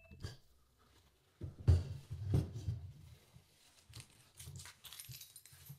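Scattered soft knocks and rustling handling noises, the loudest a few dull thumps about two seconds in.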